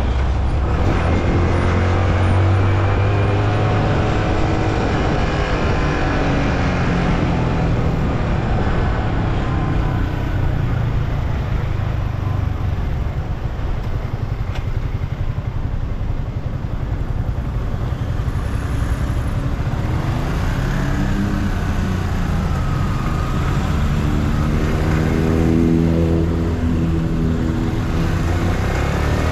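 Yamaha M-Slaz's single-cylinder 150 cc engine running under a rider on the road, its pitch rising and falling several times as the bike speeds up and slows. A steady rush of wind and road noise runs underneath.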